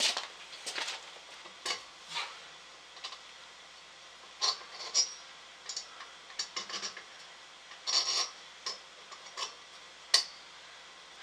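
Scattered light clicks, taps and scrapes of hands working at the back of a vintage TV set's cabinet, shifting the ion trap magnet along the picture tube's neck. The sharpest click comes about ten seconds in.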